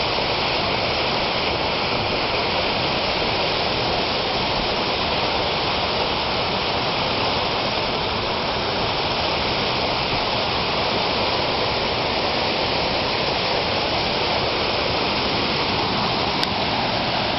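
Water pouring steadily down a small man-made waterfall, a constant rushing splash.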